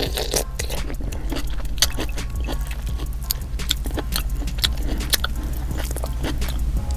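Close-miked chewing and smacking of butter-sauced green-lipped mussels, with many sharp, irregular clicks over a steady low hum.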